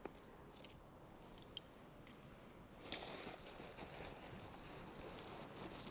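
Faint handling noises from a backpack: a few small clicks, then from about three seconds in a soft rustling as hands rummage through the bag's fabric compartment.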